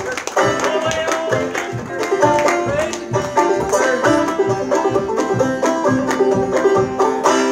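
Banjo played solo in a quick, even run of plucked notes, ending on a final chord that rings out near the end.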